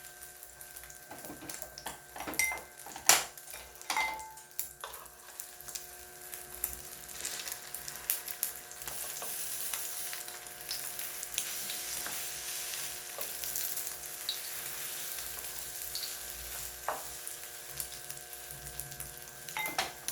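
Starch- and egg-coated tofu slices sizzling as they fry in a hot frying pan, the sizzle steadier and louder after about six seconds. A few sharp clinks in the first five seconds.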